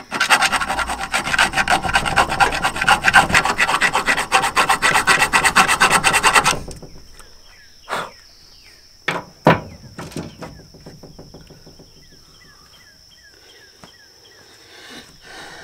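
Hand file worked back and forth in quick strokes against the aluminium casting of an Eaton M112 supercharger, stopping about six and a half seconds in. A few sharp knocks follow, then faint chirps of a bird or insect.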